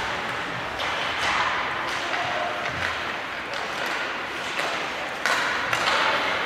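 Ice hockey play in an arena: a steady hiss of skates and rink noise, broken by several sharp knocks of sticks and puck, with voices calling out. The noise grows louder about five seconds in.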